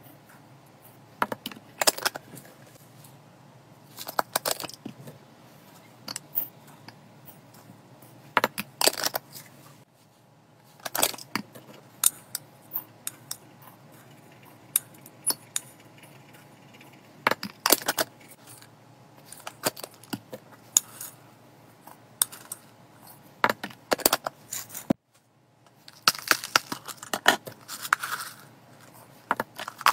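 Dry seed mix pouring and rattling into ceramic bowls, with small clinks of a spoon on the bowls and container, in short bursts of clatter every couple of seconds.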